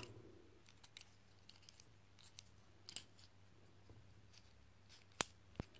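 Faint, scattered clicks of the small plastic pieces of a Bakugan Trox figure as they are folded and snapped back into ball form. The sharpest click comes about five seconds in.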